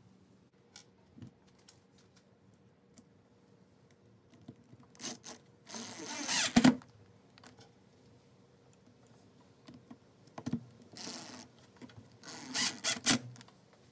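Cordless drill-driver driving wood screws through a steel angle bracket into a pine board, in two short runs: one a little after five seconds in, the other near the end.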